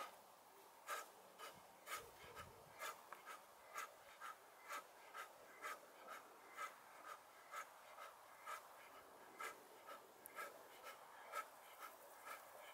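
A man's short, sharp breaths out, in a steady rhythm of about two a second, as he throws repeated punches.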